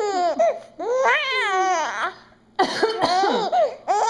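A baby laughing in several high-pitched bouts in reaction to a woman's coughing, with a cough among them.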